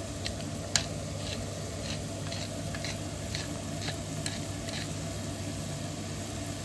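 Mushrooms sizzling in a frying pan, with light clicks about twice a second and one sharper click about a second in.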